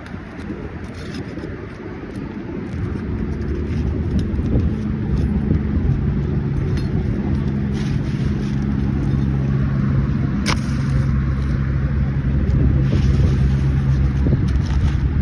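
An engine running steadily, its low hum setting in a few seconds in and growing louder, with one sharp click about ten seconds in.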